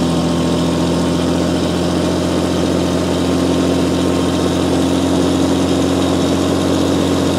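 Fishing boat's engine running steadily underway, a low even hum over a steady hiss of water and wind.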